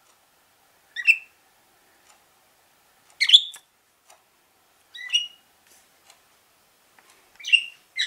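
Pet budgies giving short single chirps, four of them spaced about two seconds apart.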